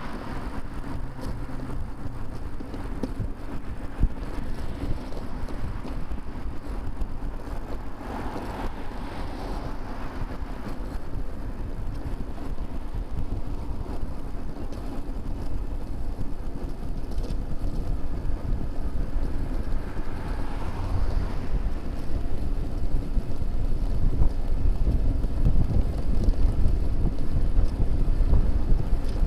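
Wind rumbling on a bicycle-mounted camera's microphone while riding along a busy road, with motor traffic passing. The low wind rumble grows louder over the last third, and there is one sharp click about four seconds in.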